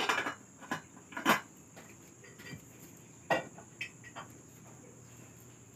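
Pots, pans and dishes being handled at a kitchen counter: about six sharp clinks and knocks, the loudest about a second in, a few more spread through the next few seconds.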